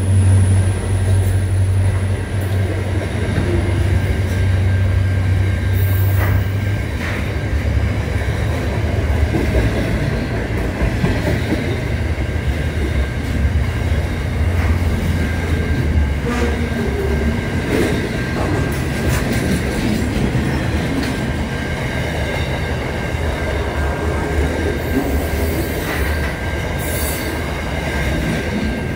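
Freight train wagons rolling past close by, with a steady heavy rumble that is strongest in the first few seconds. Wheels click irregularly over the rail joints, and a thin steady high squeal comes from the wheels on the rails.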